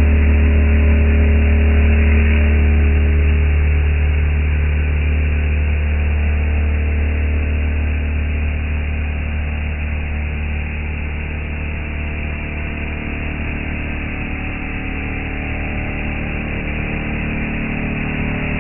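CNC router spindle with an end mill carving a wooden handrail blank on a 4th-axis rotary: a steady low machine hum with cutting noise. It eases a little around the middle and rises again near the end.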